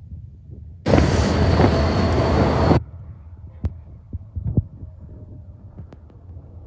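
Freight train rumbling low and steady in a rail yard, with a loud hiss that starts and stops abruptly and lasts about two seconds, followed by a few sharp knocks.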